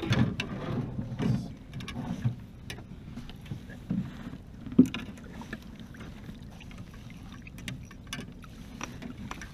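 Water splashing and lapping at the side of a small boat as a big hooked lingcod is landed, with scattered knocks and clicks against the hull. The loudest is a single sharp knock about five seconds in.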